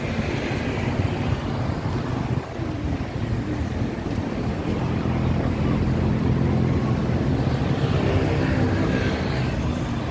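Street traffic rumbling steadily, with a vehicle engine humming close by from about halfway through and growing louder toward the end.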